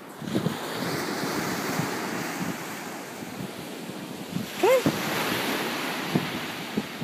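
Surf washing on a beach with wind buffeting the microphone, a steady rushing noise. About two-thirds of the way through there is one short rising-then-falling cry.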